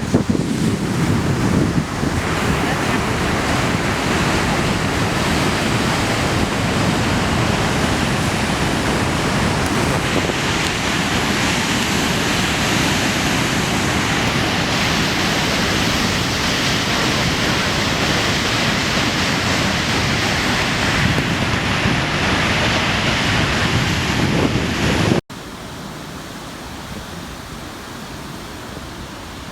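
Large Atlantic waves crashing and churning on a rocky shore at high tide, a loud, continuous rush with wind buffeting the microphone. About 25 seconds in the sound cuts off suddenly and is replaced by a quieter, steadier rush of surf.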